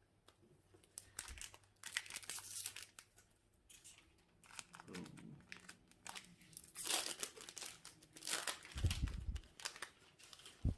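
Foil booster pack wrapper crinkling and being torn open, in several bursts of crackling, with a couple of dull thuds near the end.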